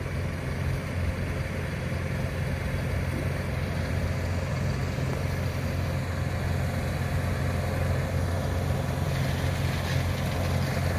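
Kubota DC-105X combine harvester's diesel engine running steadily as the machine drives on its tracks, growing slightly louder as it comes closer.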